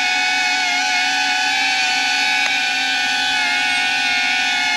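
DJI Avata FPV drone's four motors spinning Master Airscrew three-blade propellers: a steady whine of several stacked tones whose pitch wavers slightly as the motors adjust their speed.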